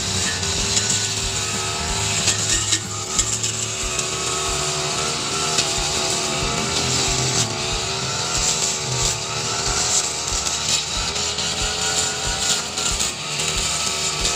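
Backpack brush cutter's small petrol engine running at high speed, its pitch wavering slightly as the two-tooth flat metal blade swings through short grass and weeds. Scattered sharp ticks sound over the engine.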